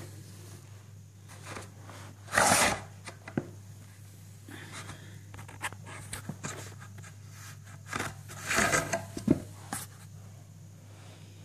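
Handling noise: soft rubbing and brushing with a few sharp clicks, loudest in two patches, about two seconds in and about eight seconds in, over a steady low hum. The chainsaw is not running.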